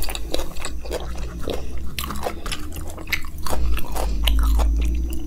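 Close-miked chewing of a mouthful of makki ki roti with sarson ka saag, a run of short mouth clicks and smacks picked up by a lapel microphone.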